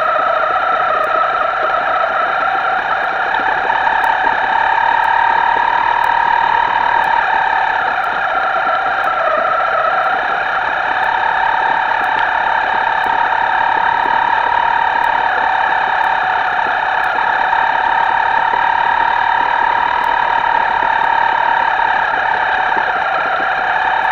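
Radio-controlled boat's electric motor whining steadily, a harsh, buzzy high tone that drifts up and down a little in pitch as the throttle changes.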